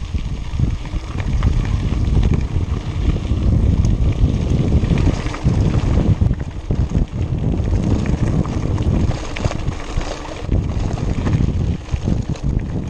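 Wind buffeting an action camera's microphone while a mountain bike rolls along a gravel dirt road, its tyres crunching over loose stones and the bike rattling over bumps.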